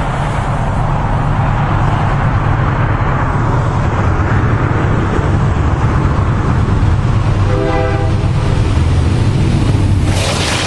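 EMD GP38-2W diesel locomotive approaching at low speed, its two-stroke V16 engine running steadily and growing louder. About three-quarters of the way in it gives one short horn blast, and near the end the engine noise jumps louder and harsher as the locomotive passes directly below.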